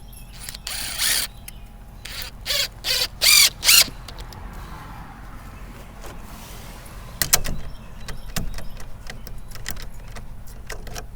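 Cordless drill driving a screw into a wooden gate in a string of short bursts of the motor, about six in the first four seconds, followed by scattered clicks and taps.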